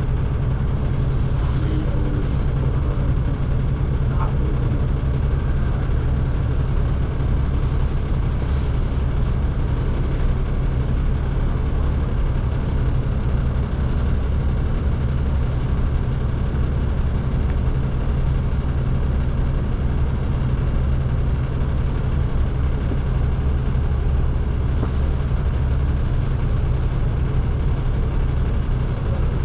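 A city bus heard from inside the cabin while under way, its engine and drivetrain giving a steady low drone over road noise. The pitch and loudness hold even, as at a steady cruising speed, with a few faint light rattles or hisses.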